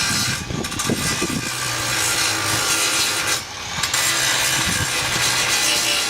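Handheld electric power tool abrading car body sheet metal: a steady grinding hiss over the motor's hum, easing off briefly twice.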